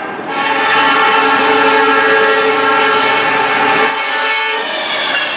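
Lead CN freight locomotive sounding its multi-note air horn in one long blast as the train approaches at speed. The horn cuts off about four and a half seconds in, leaving the rumble of the locomotives coming by.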